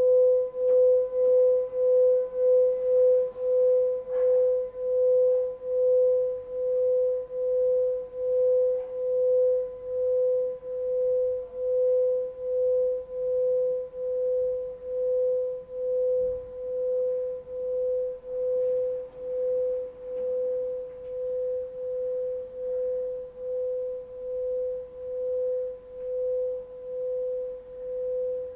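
Singing bowl sounding one sustained tone, with an even wobble in loudness a little faster than once a second.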